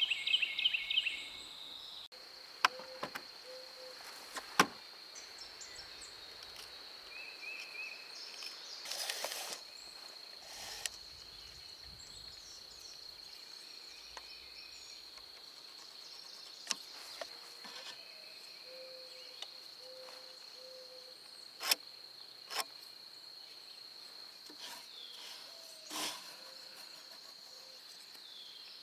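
Steady high-pitched insect drone, with scattered sharp clicks and knocks.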